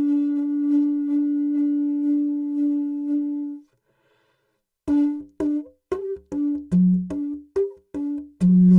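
Didgeridoo sounding a steady held note for about three and a half seconds, then a string of about eight short, separate notes that jump between a middle, a lower and a higher pitch, before a loud sustained lower note begins near the end.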